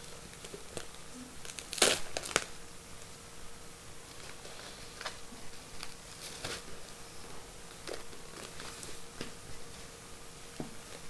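Plastic bags and foam wrapping crinkling and rustling in the hands as a speaker is unwrapped, in scattered short crackles, with a couple of louder sharp crackles about two seconds in.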